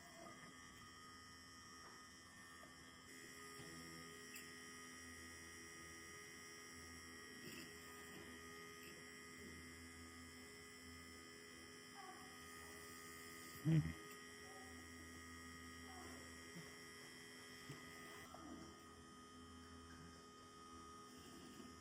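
Small bench drilling machine's motor running with a steady electric hum while holes are drilled through a printed circuit board. One brief louder sound comes about 14 seconds in.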